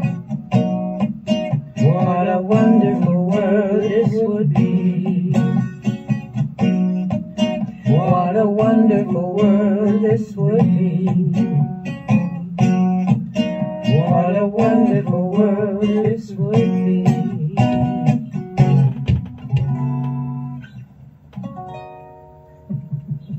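Acoustic guitar strummed in a slow, steady rhythm as a song's closing instrumental, with a wavering wordless vocal line over it at intervals. The playing thins out and dies away near the end.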